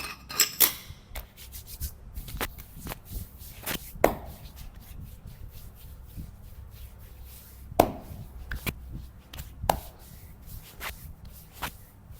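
Hands massaging bare skin: rubbing, broken by irregular sharp slaps and chopping strikes, the loudest about half a second in, near four seconds and near eight seconds.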